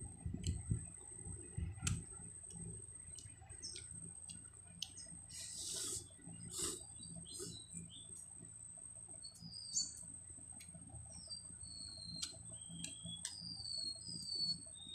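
Quiet eating sounds: noodles slurped and chewed from a steel bowl, with light clicks of chopsticks and spoon. Small birds chirp in the background, mostly in the second half.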